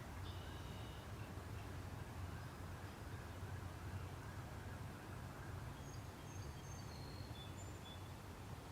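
Steady low rumble of outdoor background noise, with a few short, high bird chirps just after the start and several more in the last few seconds.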